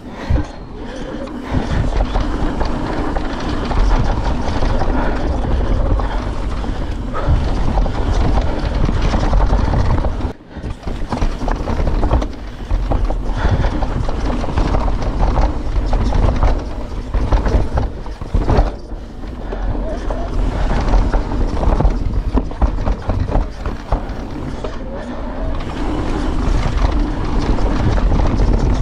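Wind rushing over the camera microphone and tyres rolling fast over a dirt forest trail on an electric mountain bike descent, with the bike knocking and rattling over bumps. There is a brief lull about ten seconds in.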